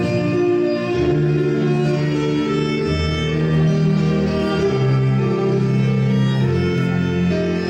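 Two violins bowing a melody together over sustained low accompanying notes.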